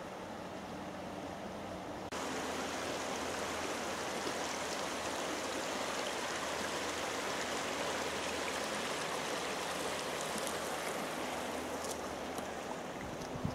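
Shallow river water running over stones and gravel: a steady rushing that jumps suddenly louder about two seconds in. A few light knocks come near the end.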